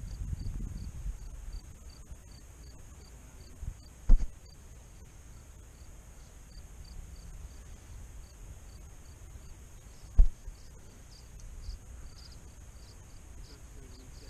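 An insect chirping steadily, short high chirps about three a second, over a low rumble. Two sharp knocks stand out, about four seconds in and about ten seconds in.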